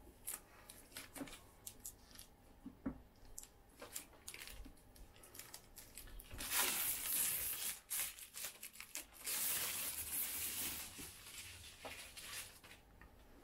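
Clear plastic wrap being pulled and torn off an electric unicycle's shell: scattered crinkles at first, then two longer, louder stretches of tearing, about six and nine seconds in.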